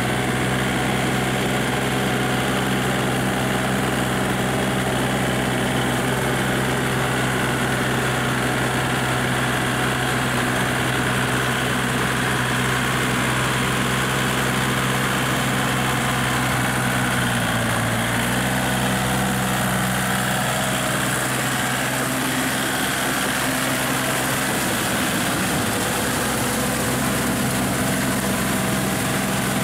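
Small Kubota compact tractor's diesel engine running steadily as it works through paddy mud. Its note dips briefly a little past halfway, then picks up again.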